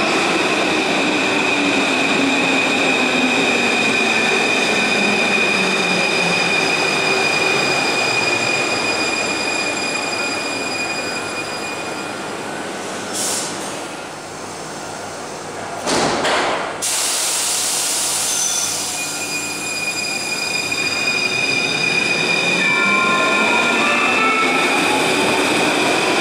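Paris Métro train running into a station, its motor whine falling in pitch as it slows, with a steady high squeal over the running noise. About two thirds of the way through there is a short loud clatter, then a motor whine rising in pitch as a train pulls away.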